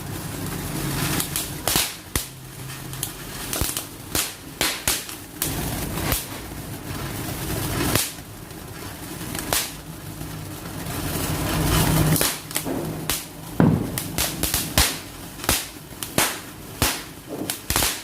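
Firecrackers going off: a run of sharp cracks at irregular intervals, coming thicker and faster in the last few seconds.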